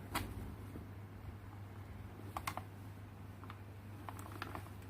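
A few light clicks and taps of a USB cable plug being pulled out and pushed into the second port of a USB charger adapter: one click just after the start, a close pair about two and a half seconds in, and smaller taps near the end.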